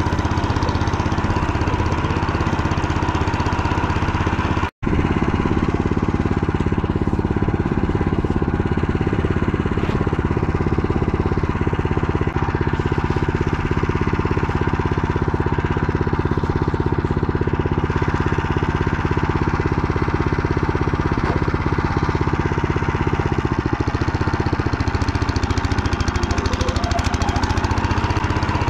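Motor Sich motorcycle engine running steadily at low revs, with a brief break in the sound about five seconds in. Its note changes about three-quarters of the way through.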